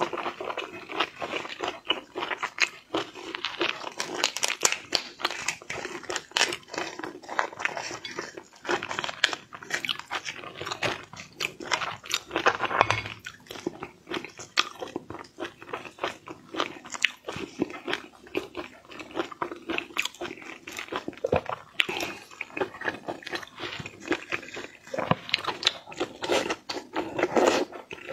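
Wet chewing, smacking and crunching of raw shrimp: dense, irregular clicks.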